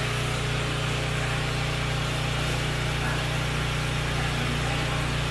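Portable generator engine running with a steady, even drone.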